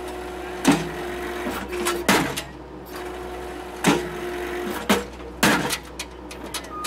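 Skid-steer-mounted Blue Diamond hydraulic post driver hammering a wooden post, heard from inside the Case skid steer's cab. Five sharp blows land at uneven intervals, the first the loudest, with a steady whine from the machine between them.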